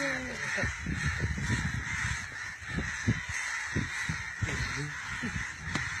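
A flock of crows cawing overhead, a steady overlapping chorus, with wind rumbling on the microphone.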